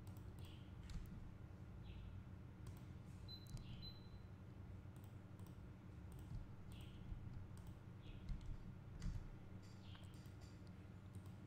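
Faint computer mouse clicks, scattered and irregular, over a low steady hum.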